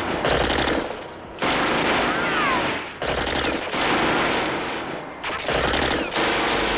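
Several bursts of automatic gunfire with short breaks between them.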